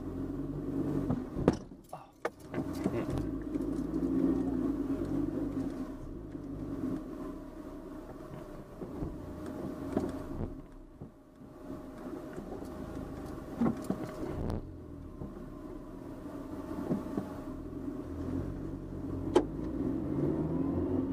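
Car engine and road noise heard from inside the cabin as the car drives slowly along a street, the engine note rising and falling as it pulls away and changes speed. A few short knocks and rattles sound through it.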